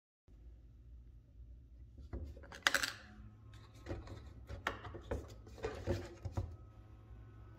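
A plastic bottle being handled on a bench: a run of small clicks and knocks from about two seconds in as it is set down and its flip-top cap is worked open. The loudest click comes early in the run.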